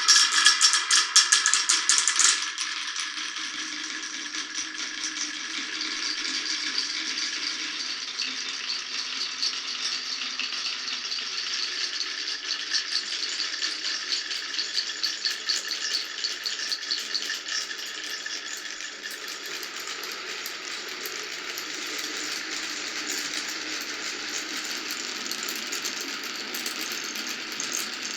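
Many marbles rolling and clattering down a wooden marble run, a steady rattle of rapid clicks. It is loudest and densest with ringing clicks for the first couple of seconds, busier again in the middle, and a little softer near the end.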